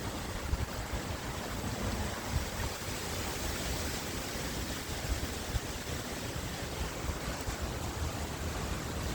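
Strong wind blowing steadily, with gusts buffeting the microphone in a low rumble and a few brief thumps.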